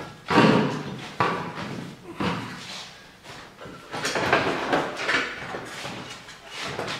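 Metal front bumper of an ATV being wrestled off the machine: a run of knocks, clunks and scraping as it bumps against the frame and plastic fenders, the loudest clunk right at the start.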